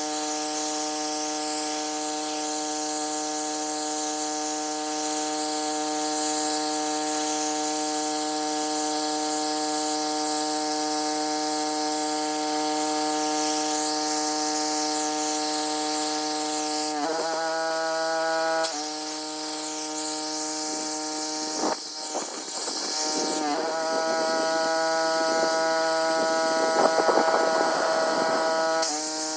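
Pressure washer running with a steady buzzing hum under the hiss of its water spray. The hum's pitch steps up and down abruptly a few times in the last third.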